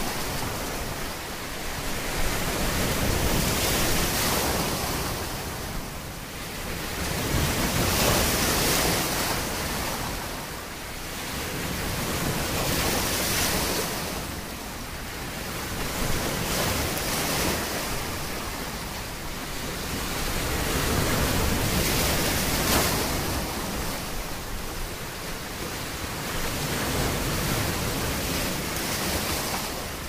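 Ocean waves washing, a steady rushing hiss that swells and eases every few seconds.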